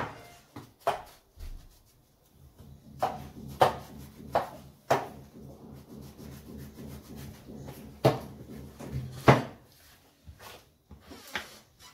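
Kitchen knife working an eggplant on a wooden cutting board: irregular sharp taps of the blade and peel on the board, with scraping between.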